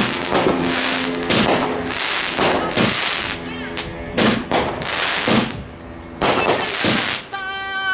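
Top Gun Fireworks 'Color Smoke Wall' consumer fireworks cake firing a rapid series of shots, each a sharp report, roughly one or two a second, as smoke-trailing comets launch.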